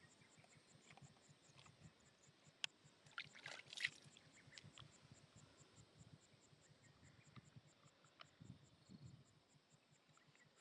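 Near silence with a few faint, sharp clicks, the loudest a cluster about three to four seconds in, over a faint, evenly repeating high chirp.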